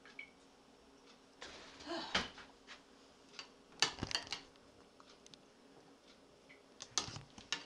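Kitchen clatter: dishes and utensils being handled on a counter, a few separate bursts of short clinks and knocks, the loudest about four seconds in.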